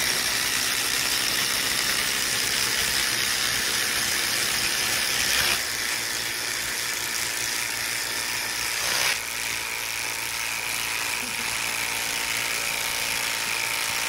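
Three cordless impact drivers (a DeWalt, a Makita and a third) hammering long screws into a tree stump at once, a fast mechanical rattle. One cuts out about five seconds in and a second about nine seconds in, leaving the Makita running alone.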